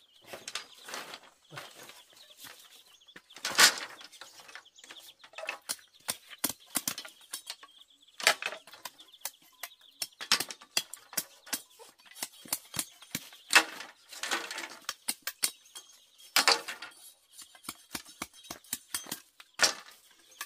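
A machete chopping and splitting bamboo. Irregular sharp cracks and knocks come among rustling and clattering bamboo strips, with the heaviest blows every few seconds.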